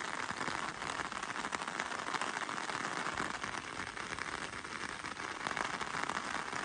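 Steady rain falling, a dense, even run of small drop ticks.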